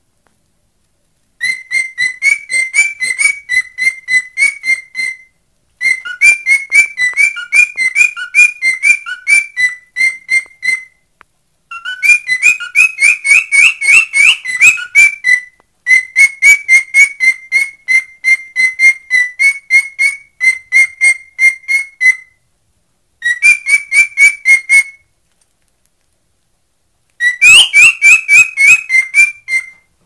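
Cockatiel whistling a song: six phrases of quick, repeated short notes held around one high pitch, each phrase a few seconds long with brief pauses between.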